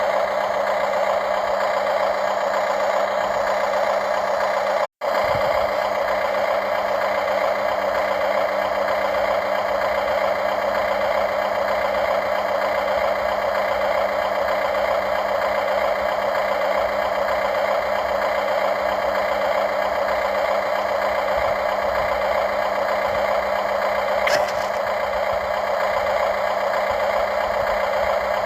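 Remote-controlled model excavator running steadily, a constant mechanical hum and whine of its motors and drive. It cuts out for an instant about five seconds in, and there is a small click near the end.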